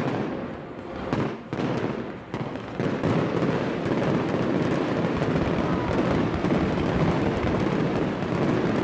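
Fireworks finale: a few sharp bangs in the first three seconds, then a dense, continuous crackling from many bursting shells and crackle stars at once.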